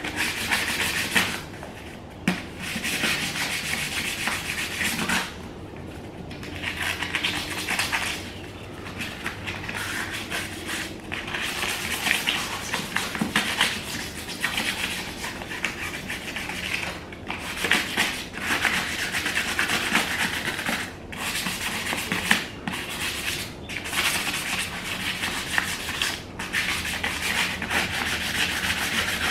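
Hand sanding the face of an alloy car wheel with 400-grit sandpaper: a scratchy rubbing in quick strokes with short pauses now and then. This scuffs the smooth finish so that primer and paint will stick.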